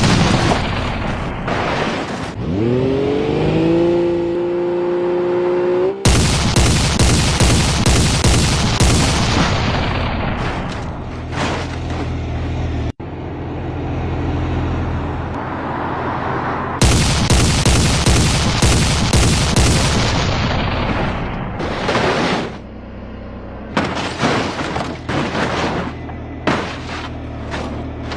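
Thunder: repeated loud booming cracks over a dense steady noise like heavy rain, with music underneath. A long pitched call rises and then holds about two to six seconds in.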